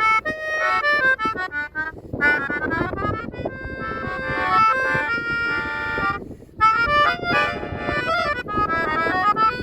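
Pianica (keyboard harmonica) playing a lively choro melody in quick runs of notes, with short breaks about two and six seconds in. Strong wind rumbles on the microphone underneath.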